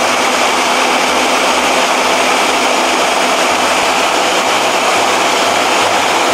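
Ninja countertop blender running steadily at speed, its motor whirring as it purees a thick green dip.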